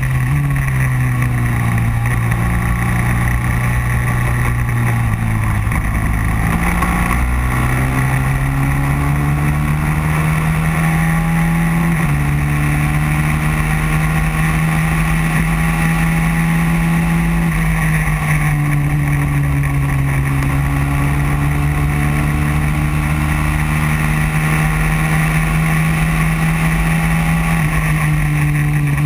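Racing kart engine running hard under the driver, its pitch dropping about five seconds in as the kart slows for a corner, then climbing back and holding high along a straight, with a short dip near the end.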